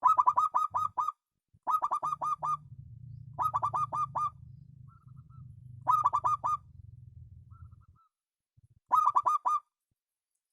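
Zebra dove (perkutut) cooing: five bursts of quick, repeated coo notes, each about a second long and roughly two seconds apart, with faint single soft notes in the gaps. A low hum runs under the middle of the passage.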